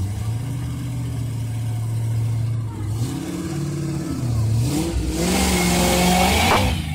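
Engine of a vintage carcacha race car running steadily at low revs as the car rolls past, then revved up and down. It is loudest with a rushing exhaust about five to seven seconds in as the car pulls away.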